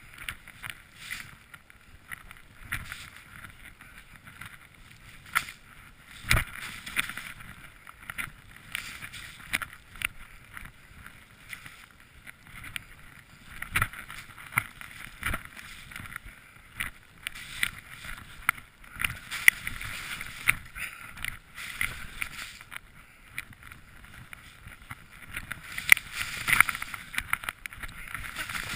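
Skis swishing through deep powder snow: an uneven hiss that swells and fades over and over, with a few sharp knocks.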